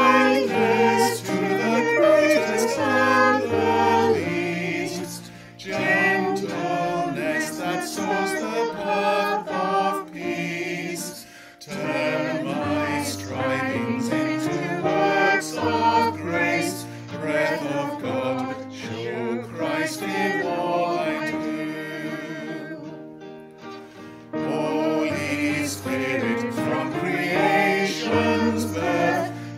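A hymn sung with instrumental accompaniment. The music dips briefly about three-quarters of the way through, then the next verse starts.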